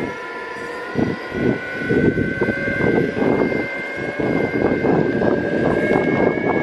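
Evolve carbon electric skateboard riding along asphalt: a steady high whine from its electric drive over the rumble of the wheels and wind buffeting the microphone.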